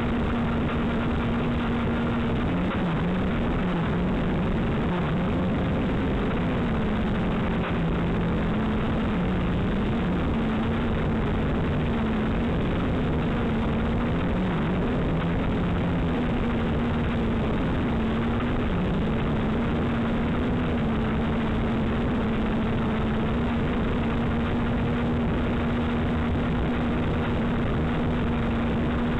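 JJRC H8C quadcopter's four small electric motors and propellers whining, heard through its onboard camera's microphone over a steady rush of propeller wash. The pitch wavers up and down with throttle changes for most of the first twenty seconds, then holds steady.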